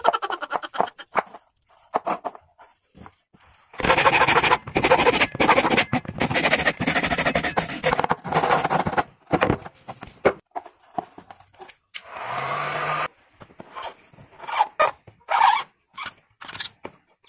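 Hacksaw cutting through a plastic pipe, a stretch of rough back-and-forth sawing lasting about five seconds, with short clicks and knocks from plastic pipe fittings being handled before and after it.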